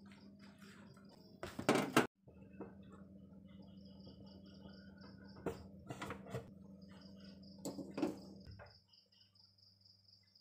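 Handling knocks and clatter as the phone is carried to the gas stove and a plastic bottle of cooking oil is picked up, the loudest about a second and a half in. A low steady hum stops near the end, and a high, fast-pulsing chirp runs in the background.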